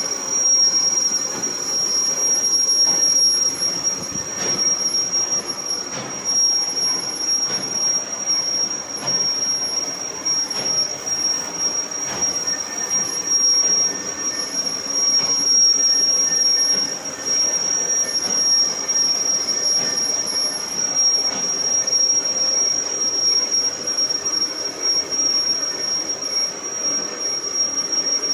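Metal lathe turning a steel shaft under a cut, with a steady high-pitched squeal held over the machine's running noise and scattered small clicks.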